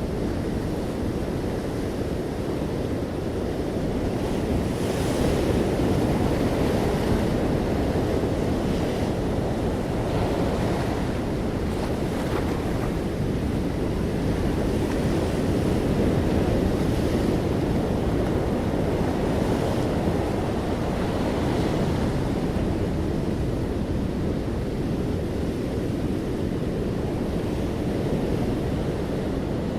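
Sea waves breaking on the shore: a steady rush of surf that swells and eases in slow surges.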